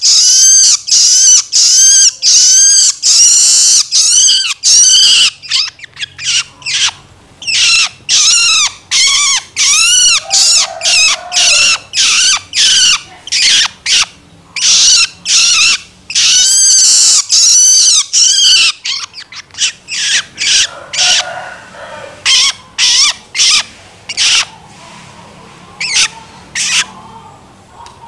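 Juvenile long-tailed shrike (cendet) giving its begging call ('loloan'): a loud, fast series of short arched high notes, several a second, in runs with brief gaps, thinning out toward the end.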